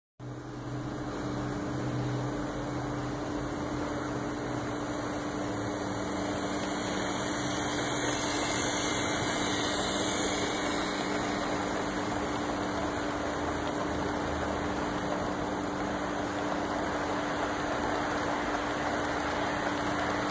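Model train rolling past on the layout track: a steady hum under a running rush of wheel and motor noise that grows a little louder as the locomotive and its freight cars come by.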